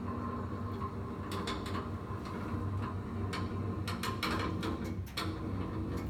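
Scattered sharp clicks and light knocks as a patient is handled and positioned on a chiropractic table with a padded leg bar, over a steady low hum.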